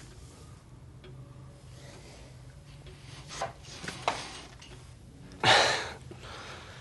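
A sudden loud burst of breath about five and a half seconds in, a stifled laugh just before open laughter breaks out. Before it come two short, fainter breathy sounds, all over a low steady hum.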